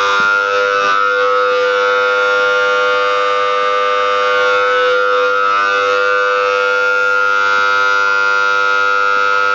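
Loud, steady alarm tone holding at one pitch, set off by a Merya RTLS lone-worker locator module after it has lain motionless: the man-down (no-movement) alarm.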